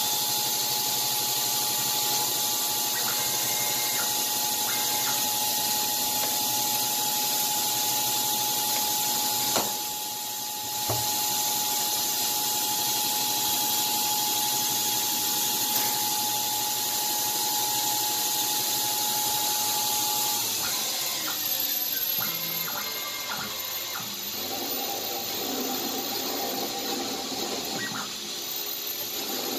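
Grizzly G0602 lathe, converted to CNC, turning a metal pulley under programme control: a steady hiss of cutting over a steady whine from the machine. About a third of the way in the sound dips briefly with a click. About two-thirds through the whine stops and a lower tone takes its place as the tool moves to another cut.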